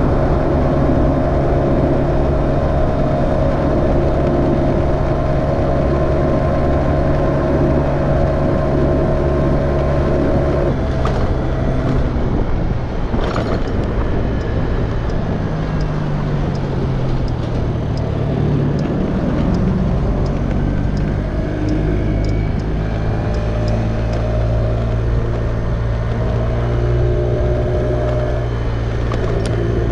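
Kawasaki GPZ900R's inline-four engine running steadily under way, its note shifting and gliding in pitch around the middle before settling again.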